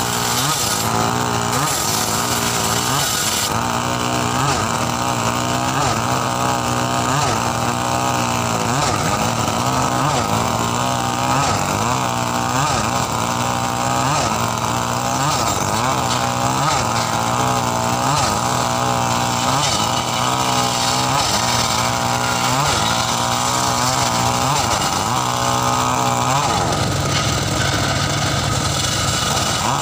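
Engine of a homemade circular saw bench running, its note sagging and recovering in a regular rise and fall about every second and a half. Near the end it settles into a steadier note.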